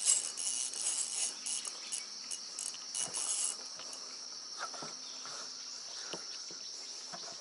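Insects chirring steadily at a high pitch, with a second, louder pulsing insect call over it that stops about three and a half seconds in. A few faint knocks sound in the second half.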